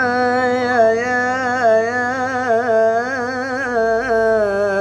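A single voice chanting Quranic recitation in maqam nahawand: one long unbroken held vowel, the lengthened mad before a sukun, decorated with wavering melodic turns, with a small step in pitch about three and a half seconds in.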